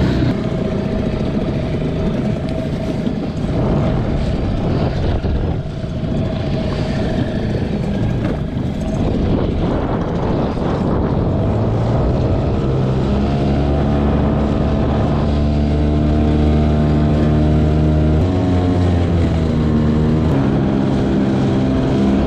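Small outboard motor pushing an inflatable skiff through choppy water, with wind on the microphone and water rushing at the bow. The motor's steady hum grows clearer about halfway through, and its pitch dips and comes back up near the end.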